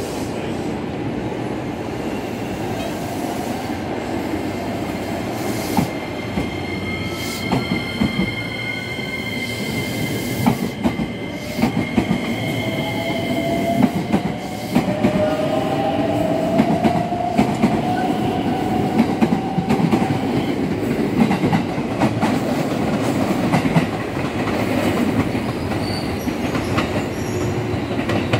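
JR West 287 series electric limited express pulling out of the station: a steady rumble with clicking wheels over rail joints. High squealing tones run through the first half, and a motor whine rises slowly in pitch as the train picks up speed.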